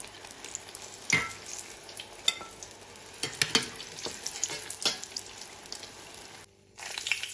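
Eggplant slices frying in hot oil in a stainless steel pot, sizzling steadily, with sharp clinks and scrapes of a slotted metal spatula against the pot as the fried slices are lifted out. The sound breaks off for a moment near the end.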